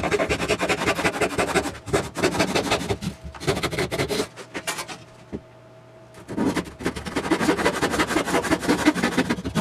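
Handsaw cutting through 3/8-inch plywood in quick back-and-forth strokes, sawing out a notch. The sawing stops for about two seconds in the middle and then resumes for a second cut.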